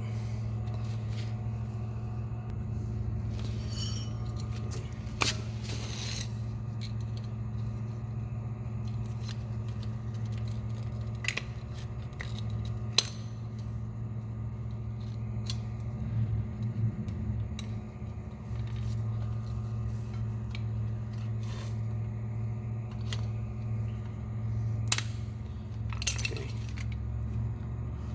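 Scattered metallic clinks and taps as parking brake shoes, springs and the adjuster are handled and fitted together, over a steady low hum.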